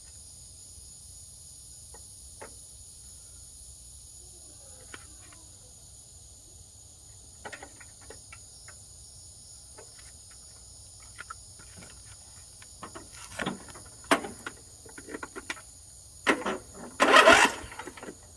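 Scattered clicks and knocks of hand work on a riding mower's parts, sparse at first and busier in the second half, with a louder rattling burst near the end. Insects drone steadily in the background.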